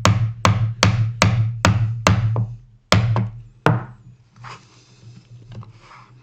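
Mallet striking a chisel to chop dovetail waste at a scribed line in hardwood: six sharp, evenly spaced knocks at about two and a half a second, then two slower strikes. After that, only faint light scraping.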